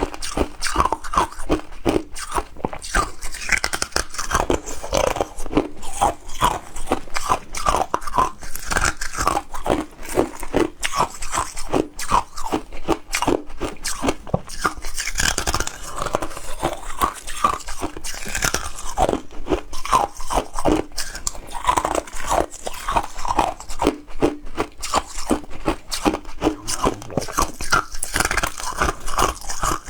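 Ice being bitten and chewed close to the microphone: continuous crisp crunching and cracking, several crunches a second without a break.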